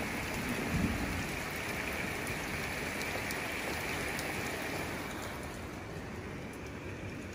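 Steady rain falling, growing slightly quieter over the last couple of seconds.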